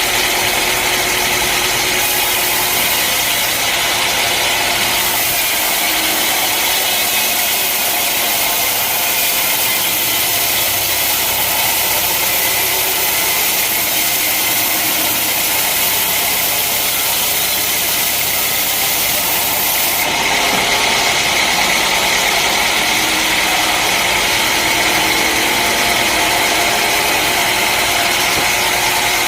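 Engine-driven sawmill running steadily: a loud engine hum under a high hissing noise, which changes about five seconds in and again about twenty seconds in.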